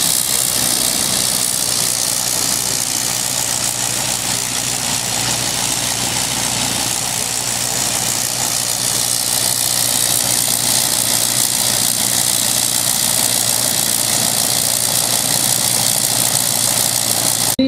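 A Sopwith Pup's 80 hp Le Rhône rotary engine running on the ground. Its sound swells and eases a little as the pilot works the fuel and air mixture controls, since a rotary has no throttle as such.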